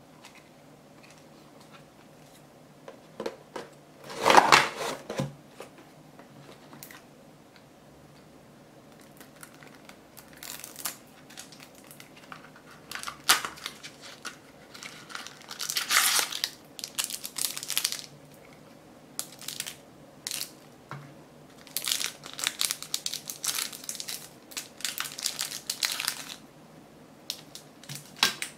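A small paperboard cigarette-candy box being handled and opened by hand: paper and card crinkling and rustling in scattered bursts, loudest about four seconds in.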